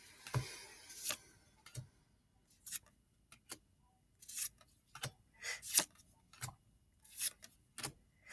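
Pokémon trading cards sliding against one another as they are flipped one by one from the front of a hand-held stack to the back: about a dozen short swishes, a little more than one a second.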